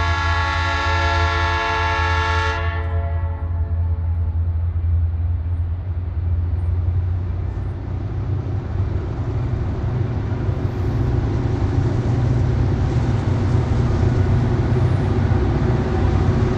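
Diesel freight locomotive air horn sounding a long chord of several notes, cutting off about two and a half seconds in and echoing away. Under it a low steady rumble of the approaching locomotives, growing louder in the second half.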